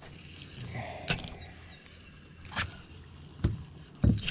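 Handling noise in a small aluminium fishing boat: a few light knocks and a louder thump near the end.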